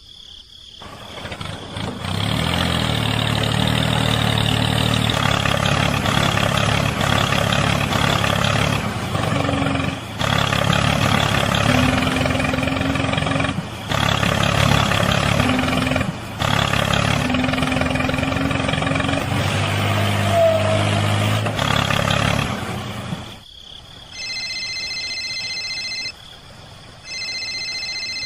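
Truck engine running, its low note shifting in steps and cutting out briefly three times. It stops near the end, and two bursts of steady electronic ringing beeps follow.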